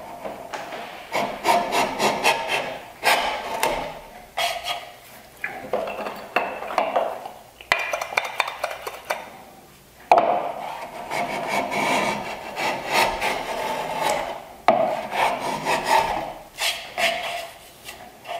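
Block plane taking repeated strokes across the end grain of a board held in a miter jack, shaving it down to a 45-degree bevel. The strokes come about one a second, with a short pause about halfway through.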